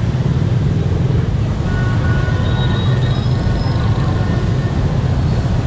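Crowd of motorbikes riding slowly in dense traffic: a steady low rumble of many small engines, with a few faint brief high tones about two to three seconds in.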